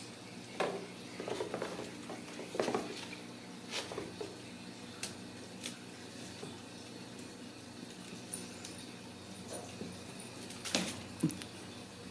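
Kittens playing on a tile floor: scattered light taps, scrapes and knocks of paws and a small wicker basket, with a louder pair of knocks near the end.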